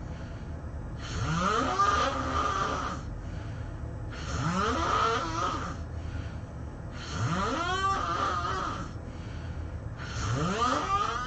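A person snoring in their sleep: four snores about three seconds apart, each a drawn-out pitched rasp that rises in pitch.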